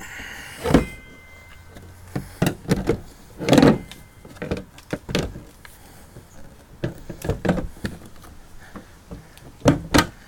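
Irregular knocks and clunks, a dozen or so sharp ones spread throughout, of a plastic pickup-truck taillight assembly being handled and fitted back into the body.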